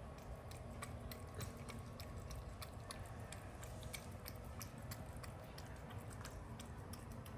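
A cat eating from a steel bowl: faint, irregular crunching and clicking chews throughout.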